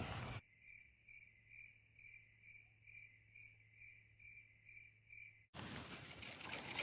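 Cricket chirping in an even rhythm, about two and a half chirps a second, over a faint steady hum. It cuts in shortly after the start and stops abruptly about a second before the end, with the outdoor sound gone meanwhile: an edited-in 'crickets' sound effect.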